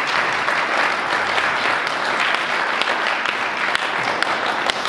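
Audience applauding: steady, dense clapping from many hands, with a few sharper single claps standing out near the end.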